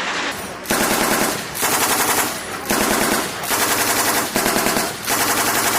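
Machine gun firing six bursts of rapid automatic fire, each under a second long, with short pauses between them.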